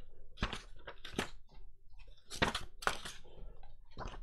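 Paper pages of a hardcover book being turned and handled: several short, crisp rustles at uneven intervals.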